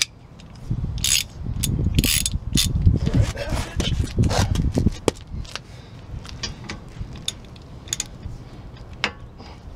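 Hand socket ratchet clicking in short runs, with metal clinks and rattles of the socket and tools, as the brake caliper bolts are worked loose.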